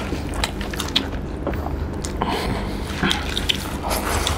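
Close-up eating sounds: wet chewing and mouth smacks with irregular sharp clicks, as rice is mixed by hand and eaten in big handfuls.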